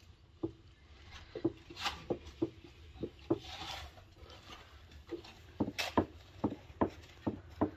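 Thin wooden rolling pin rolling and knocking on dough over a floured wooden board: a run of irregular short wooden taps with soft rubbing swishes between them, pausing briefly about halfway.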